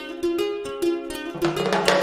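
Background music: a ukulele picking a steady run of notes, with a lower bass note coming in near the end.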